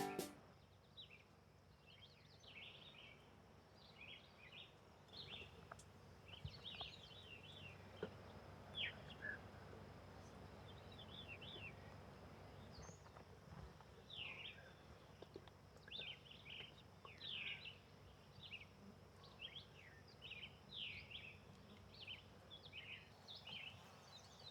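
Faint outdoor ambience of small birds chirping, short quick calls repeated throughout, over a faint steady high tone and a low background hiss.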